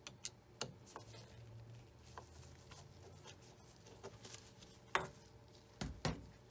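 Scattered small metallic clicks and taps of a screwdriver and gloved hands working the stop-motion screw at the centre of a Singer Featherweight 221 sewing machine's handwheel, with two dull knocks near the end.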